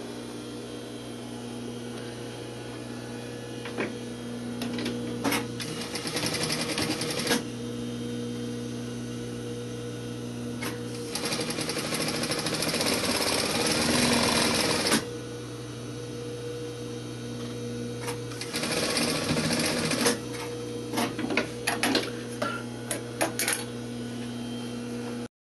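Electric sewing machine stitching canvas cap panels together in three runs of a few seconds each, about five, eleven and eighteen seconds in, with a steady low hum in between and several sharp clicks near the end.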